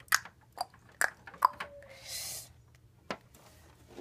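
A child clicking her tongue about twice a second, four times, as the 'tick-tock' of a clock. A short breathy hiss follows about two seconds in, and one more click comes near the end.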